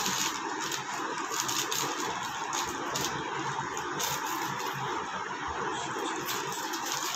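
Steady, even rushing background noise with no clear single source and no speech.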